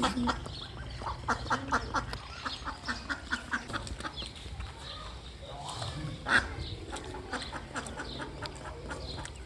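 Ducks quacking: a quick run of short quacks in the first couple of seconds, then scattered calls, with a louder one about six seconds in.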